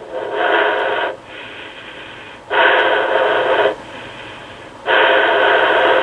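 Three rushes of breath, each about a second long and a little over two seconds apart, picked up by a rotary telephone's carbon microphone and heard back over a phone line through an answering machine's speaker, so they sound thin and hissy. The air from the nose passes right in front of the mouthpiece.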